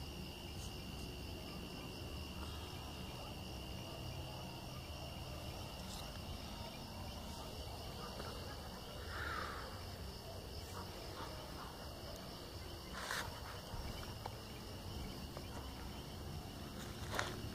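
Crickets chirping in a steady, high, pulsing trill, with two sharp clicks in the second half.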